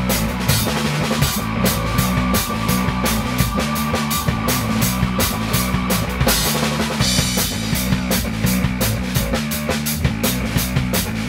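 A band playing live: an electric guitar through effects pedals and amp, with a drum kit keeping a steady, driving beat.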